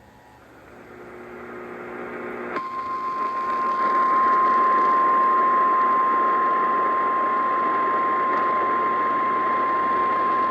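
Radio receiver static swells up, and about two and a half seconds in the NOAA Weather Radio warning alarm tone starts: one steady 1050 Hz tone held over the hiss. It is the tone that announces a warning broadcast.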